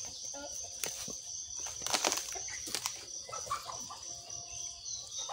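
A steady high-pitched insect chorus, with a cluster of rustling crunches about two seconds in from footsteps on dry bamboo leaf litter.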